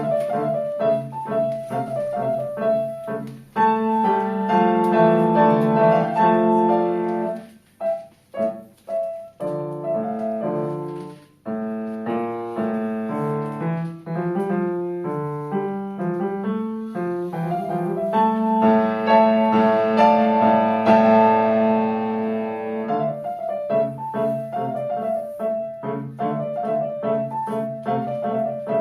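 Solo piano playing: short detached notes alternating with loud held chords, with a few brief breaks about a third of the way in.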